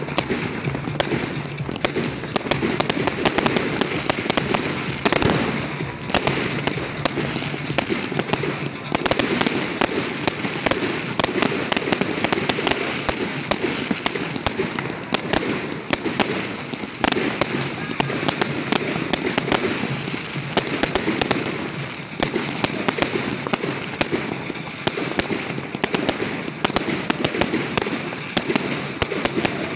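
Aerial fireworks bursting in a dense, unbroken run of bangs and crackles.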